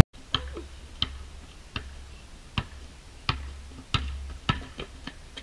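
A basketball being dribbled on asphalt: sharp, evenly spaced bounces about every two-thirds of a second, with two quicker bounces near the end.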